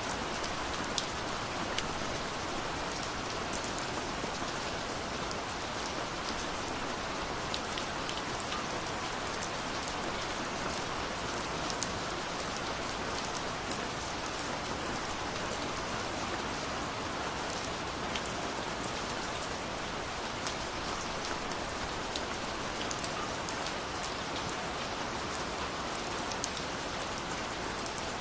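Steady rain falling, a constant hiss with scattered sharper drop ticks on top.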